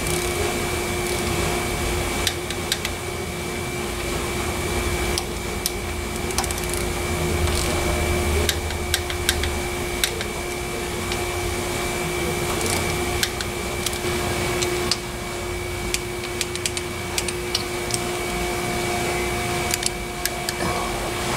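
Steady background hum with a constant whine, with scattered sharp clicks and taps from a hand ratchet and socket extension being worked on bolts at the timing-chain end of a V8 engine. Several clicks come close together about three quarters of the way through.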